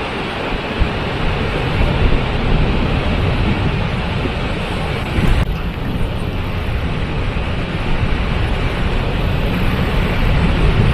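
Waterfall rushing steadily, a dense roar of falling water with a heavy low rumble.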